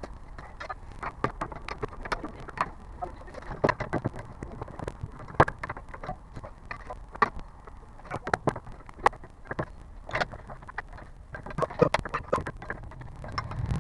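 Irregular clicking and knocking, several sharp knocks a second of uneven strength over a low road rumble, in a Hyundai Grandeur HG: the front and rear noises its owner is recording.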